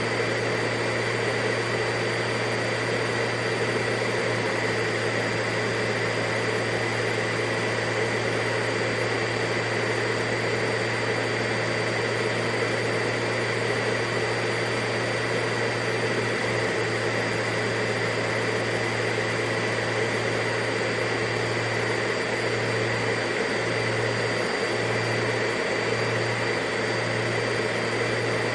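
Vacuum cleaner running steadily: an even rush of air over a low motor hum, with a faint high whine on top, unchanging throughout.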